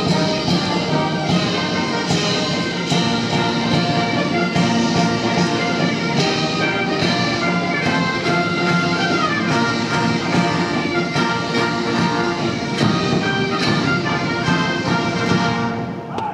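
Military band of brass and drums playing a march-style piece, with a regular drum beat under the brass chords. The music stops near the end.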